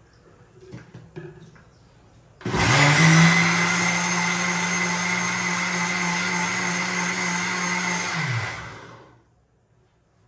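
Electric mixer-grinder wet-grinding soaked moong dal and rice with water into batter. It starts abruptly about two and a half seconds in, runs at a steady whir for about six seconds, then is switched off and winds down, falling in pitch. A few light knocks from the jar and lid come just before it starts.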